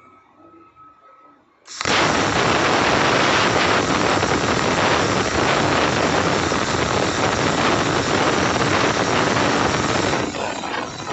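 Plasma cutter arc striking suddenly about two seconds in and cutting with a loud, steady hiss, falling to a quieter crackling hiss near the end.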